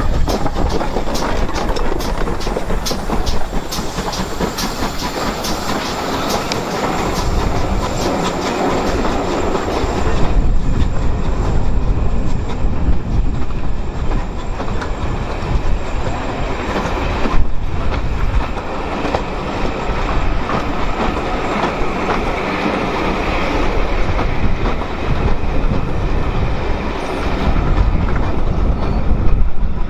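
Steam-hauled train of passenger coaches rolling past close by behind a GWR 2-8-0 tank engine. The wheels clatter and click over the rail joints, with the clicks thickest in the first few seconds.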